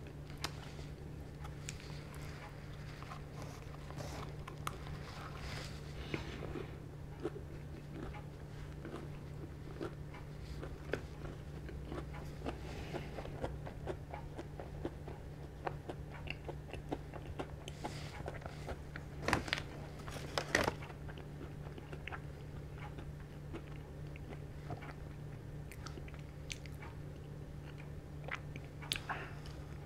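Close-miked chewing of the last bite of a vanilla custard puff: soft wet mouth sounds and many small clicks, with a few louder clicks about twenty seconds in. A steady low hum runs underneath.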